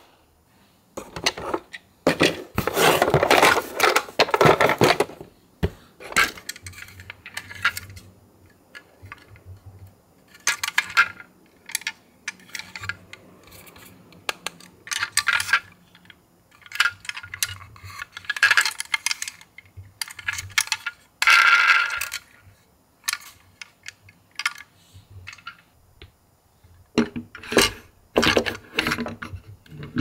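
Toy ambulances being handled and picked out of a box, making irregular clicks, clinks and plastic rattles with short quiet gaps between them.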